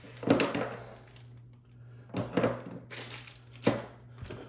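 Clear plastic bags of plastic miniatures crinkling and rustling as they are handled, in several short bursts, with a sharp click a little before the end. A low steady hum runs underneath.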